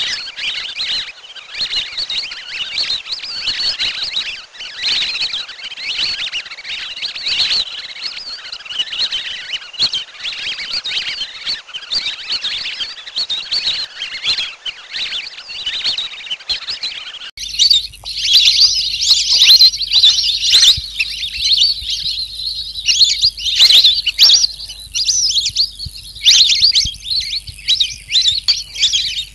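Recorded song of the pikikat bird: dense, rapid high-pitched chirping. About seventeen seconds in, the recording switches to louder, sharper chirps over a faint steady low hum.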